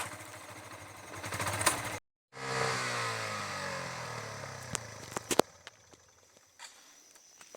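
A small engine running, then winding down with its pitch falling steadily for a few seconds and dying away. A few sharp clicks follow near the end.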